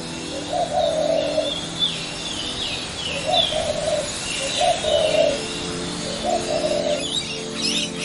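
Birdsong: short falling chirps repeating over a low cooing call that comes about four times, each coo about half a second long. Soft sustained music tones sit underneath.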